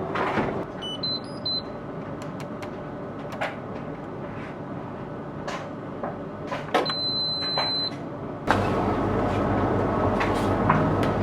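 Electronic beeps from a household appliance's control panel: a quick run of short beeps at a few different pitches about a second in, then one long beep a little after the middle, with light clicks of handling between. Near the end a louder steady running noise starts up.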